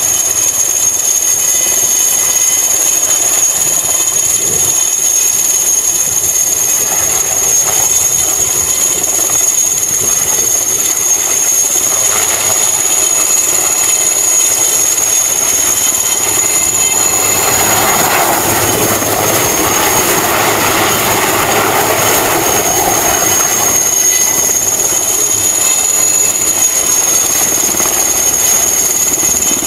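IAR-330L Puma helicopter hovering: a steady high turbine whine from its twin turboshaft engines over the rotor noise. The sound swells for several seconds past the middle.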